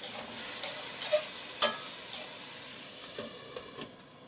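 Chicken breast and bell peppers sizzling in a frying pan while being stirred with a metal fork, whose tines click sharply against the pan several times. About four seconds in, the sizzle drops away suddenly as the lid goes onto the pan.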